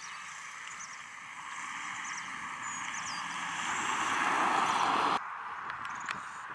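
Aircraft engine noise swelling as an airliner approaches, loudest about four to five seconds in, then cut off abruptly. Faint bird chirps sound over it.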